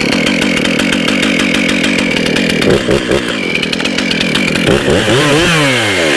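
Stihl MS311 two-stroke chainsaw running just after a warm start, steady, with its revs rising and then falling back near the end.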